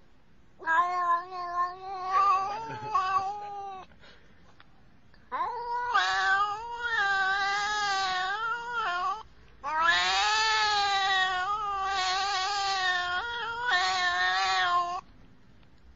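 Cat yowling in three long, drawn-out calls, each wavering in pitch, the last one the longest.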